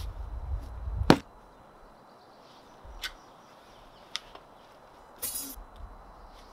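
A person shifting about inside a rooftop tent, with a sharp knock about a second in. Then a few faint clicks, and a short zipper pull near the end as the tent's side window is opened.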